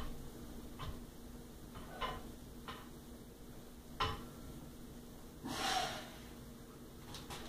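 A weightlifter's short, sharp breaths as he braces over a barbell for a deadlift, then a longer strained exhale as he pulls the bar up to standing, about five and a half seconds in. A couple of short knocks follow near the end.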